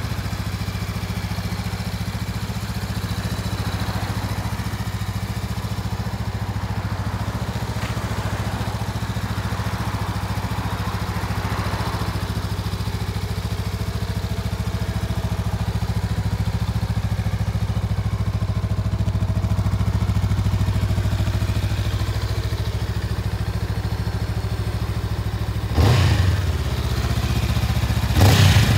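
Honda CMX500 Rebel S's parallel-twin engine idling steadily, with a sudden louder burst about three seconds before the end and another at the very end.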